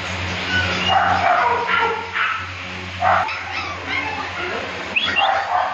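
Dog barking and yipping in short, irregular calls, some rising in pitch, over a steady low hum that stops about three seconds in.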